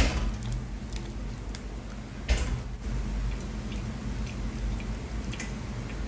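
Boiled rice being drained of its cooking water: small drips and ticks, a click at the start and a short knock about two seconds in.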